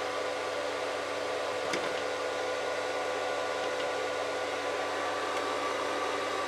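Welding inverter converted to an induction heater running steadily: cooling-fan hiss with a steady electrical hum of several tones. A faint click about two seconds in.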